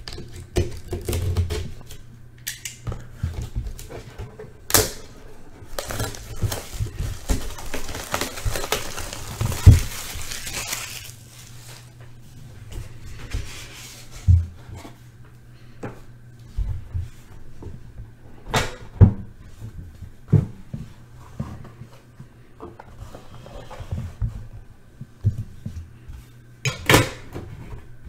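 A sealed trading-card box being unwrapped and opened by hand, with scattered clicks, taps and knocks of packaging and a few sharper snaps. There is a few-second stretch of rustling, tearing noise in the middle.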